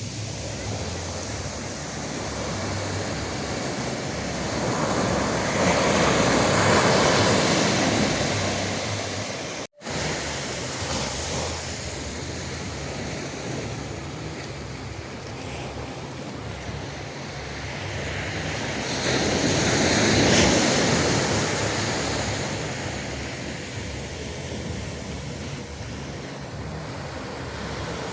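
Ocean surf: waves breaking and washing up a sandy beach in a steady rush that swells louder twice, about a quarter of the way in and again about two thirds in, with some wind on the microphone.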